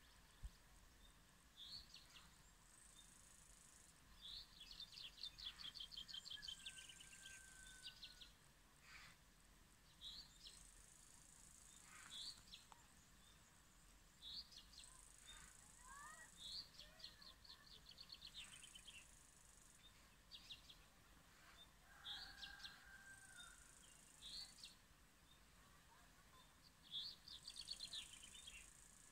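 Faint birdsong: scattered short high chirps, with a rattling trilled phrase repeated roughly every ten seconds and a few lower whistled notes.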